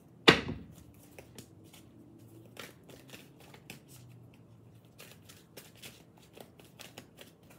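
Deck of tarot and oracle cards being shuffled by hand: many light, quick card flicks, with one sharp crack about a third of a second in as the loudest sound.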